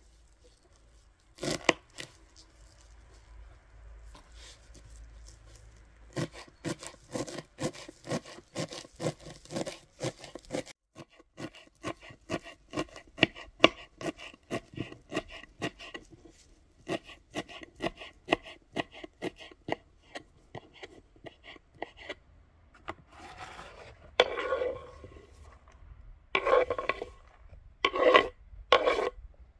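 Kitchen knife chopping fresh parsley on a wooden cutting board in quick, even strokes, about four a second. Near the end the blade scrapes the chopped parsley across the board in longer swishes.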